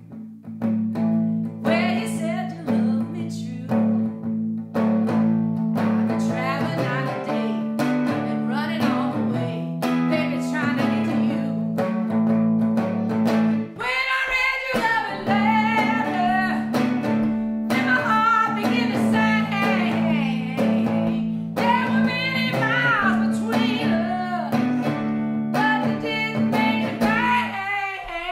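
A woman sings a blues-style song, accompanying herself on a hollow-body archtop guitar. The guitar drops out for a moment about halfway through, and the song ends just before the close.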